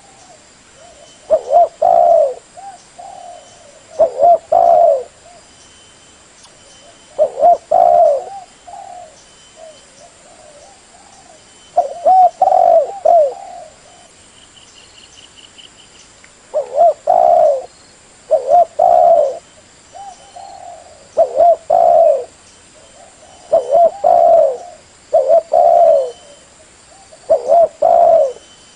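Spotted dove (tekukur) cooing: short phrases of two or three low coos, repeated every two to three seconds.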